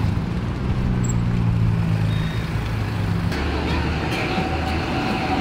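Street ambience: a steady low engine hum from road traffic with people talking in the background. About three seconds in it changes abruptly to the chatter of a crowded outdoor eating area.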